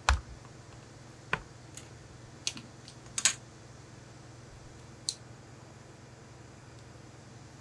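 A few light knocks and clicks as a tailor's metal L-square and a wooden curved ruler are handled on a cutting table. There is a dull thump right at the start, then scattered taps, the sharpest about three seconds in and a last one about five seconds in.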